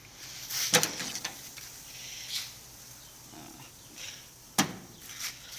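Knocks and handling noise as racks of ribs are shifted around on a barbecue grill: a sharp knock about a second in and another, louder one near the end.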